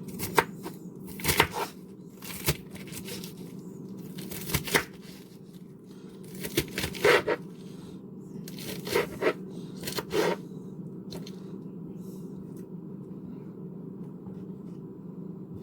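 Kitchen knife cutting through crisp lettuce onto a cutting board: irregular crunching cuts and knocks, some in quick clusters, thinning out after about eleven seconds, over a steady low hum.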